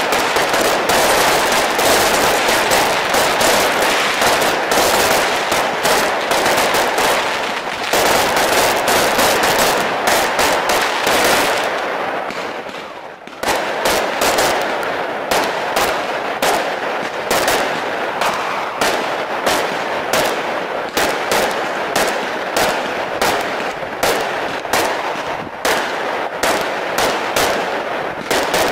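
Aerial fireworks going off in rapid volleys of bangs and crackle. The barrage thins out briefly about halfway, then resumes as a steady string of bangs about one and a half a second.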